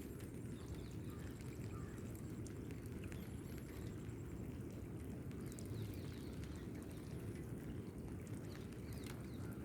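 Steady rain falling, an even hiss with faint chirps above it.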